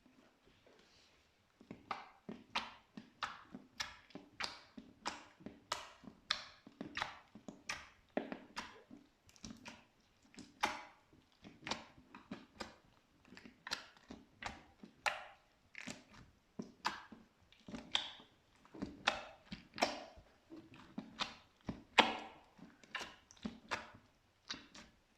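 Yellow slime being worked by hand, giving a steady run of sharp sticky pops and clicks, roughly two a second, starting after a short quiet moment.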